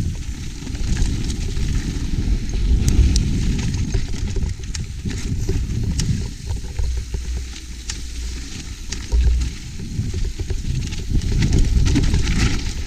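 Mountain bike riding down a rough dirt and rock trail, heard through an action camera: wind buffeting the microphone with tyres crunching over dirt and stones, and many short clicks and rattles from the bike.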